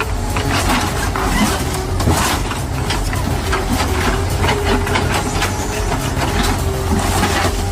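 Heavy machine engine running steadily, with a dense, irregular crackle and crunch of material being broken up.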